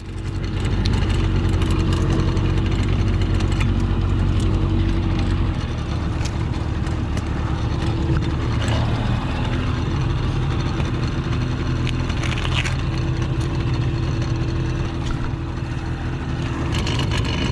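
A boat motor running steadily, with the low rumble easing a little about five and a half seconds in.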